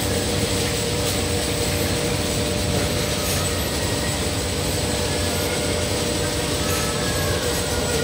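Ampoule washing machine running: a steady mechanical drone from its turning infeed screw, star wheel and ampoule carriers, with a faint high whine held over it.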